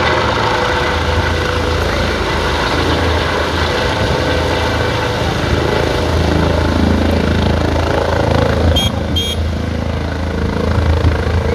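Helicopter running close by: a steady low rotor beat under a loud rushing noise.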